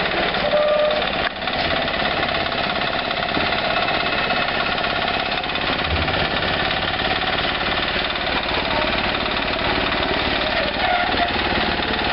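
Concrete-pouring machinery running steadily with a fast, even mechanical rattle.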